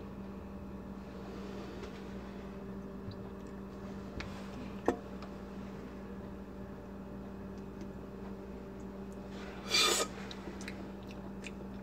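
Quiet kitchen room tone with a steady low hum, a faint click about halfway, and near the end one short, louder slurp as a sip is taken from an energy drink can.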